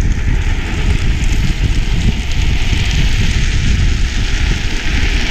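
Wind buffeting a moving microphone, mixed with the steady hiss of drift trikes' hard plastic-sleeved rear wheels sliding over asphalt.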